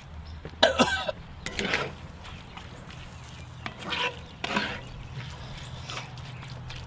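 Spatula scraping and turning ground beef in a cast-iron skillet, four short strokes over a faint steady hum.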